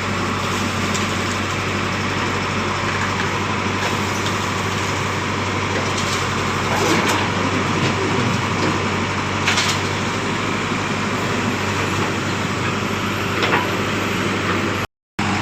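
Diesel engine of a JCB 3DX backhoe loader running steadily while it loads soil into a truck, with a few short knocks along the way.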